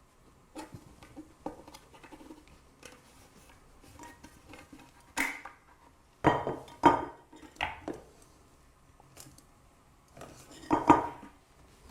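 Plastic handle piece knocking and clicking against a glass jug's handle fittings as it is handled and pressed into place: a series of sharp knocks and clinks, loudest in a cluster a little past the middle and again near the end.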